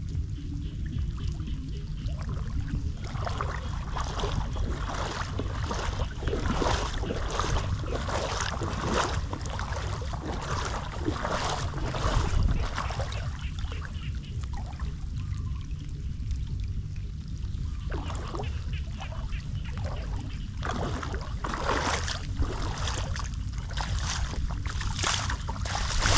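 Footsteps splashing and squelching through shallow floodwater and waterlogged grass, in irregular runs with a pause near the middle, over a steady low rumble and light rain falling on the standing water.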